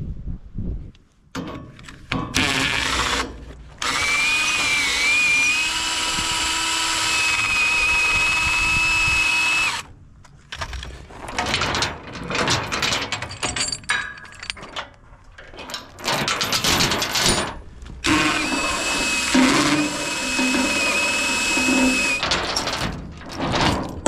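Cordless drill running in two long stretches, its motor whine wavering briefly and then holding steady. Steel tie-down chains clank between the runs.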